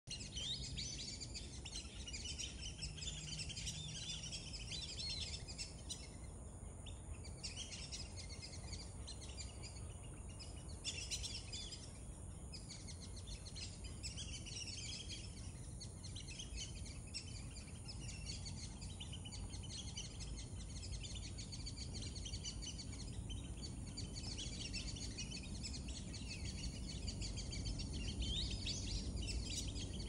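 A flock of black-bellied whistling ducks calling: many high whistled calls overlapping almost without pause, over a low steady rumble.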